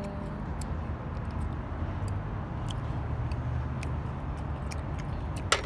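Steady low rumble of road traffic, with faint scattered clicks and one sharp click near the end.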